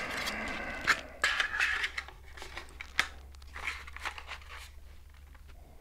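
Hard plastic parts being handled: a short rustle, then a few light, scattered clicks as a plastic cover is fitted onto the DJI FPV drone's nose, fading towards the end.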